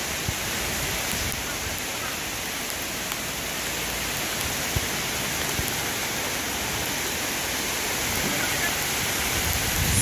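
Heavy rain falling steadily, an even hiss with a couple of faint knocks.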